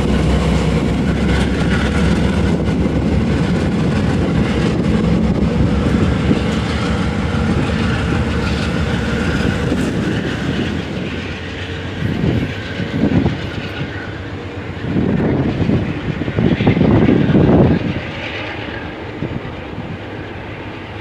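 Amtrak diesel locomotive running close by with a steady low engine drone. About ten seconds in, the sound changes to a train approaching on the rails, with several louder clattering surges of wheels on track before it eases off near the end.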